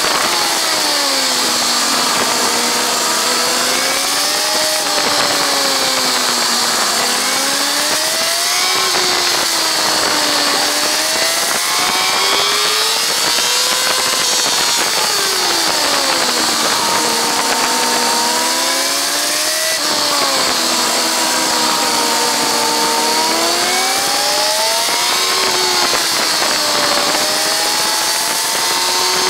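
Kawasaki ZZR1400's inline-four engine at full track speed, its pitch climbing under acceleration and dropping back again and again as it is ridden through corners, with wind rushing over the on-board microphone.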